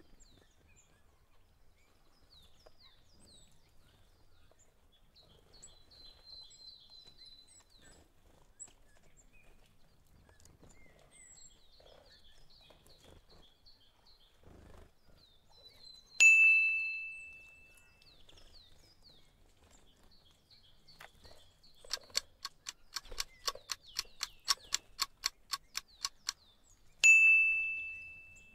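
Birds chirping faintly in the background, broken by a bright bell-like ding that rings out for over a second. Later a clock ticks at about four ticks a second for some five seconds, and a second ding ends it, a countdown-and-ding cue.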